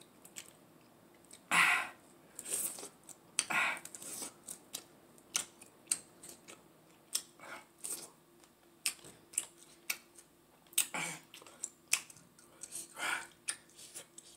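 Close-up eating of sauced chicken wings: irregular wet chewing, lip smacks and clicks, with a few louder smacks spread through.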